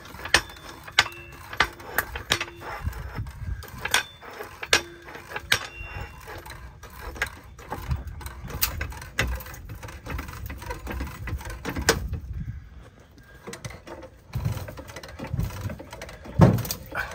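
Irregular clicks, taps and knocks of hands and tools working on a metal trailer body panel, some with a short metallic ring. The sound drops off for a couple of seconds about two-thirds through, then a few heavier thumps come near the end.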